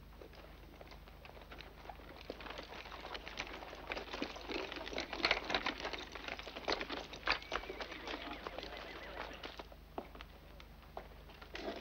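Horse hooves and a buggy's wheels on a dirt street, a string of irregular clopping and knocking that grows louder and then dies away as the rig pulls up.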